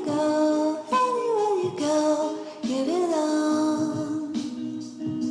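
Background music with a sung or hummed melody over a steady low drone, the phrase repeating about every second.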